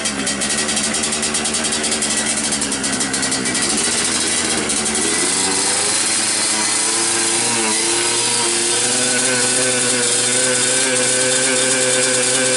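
Yamaha RX-King's tuned single-cylinder two-stroke engine running. Its pitch dips briefly twice, then settles to a steady note that creeps up near the end.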